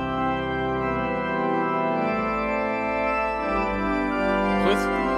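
Organ playing full, sustained chords that change slowly.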